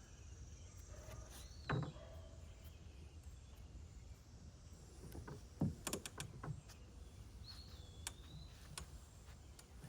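Quiet outdoor background with a steady low rumble, broken by a few soft knocks and clicks of work being handled, and a bird chirping twice.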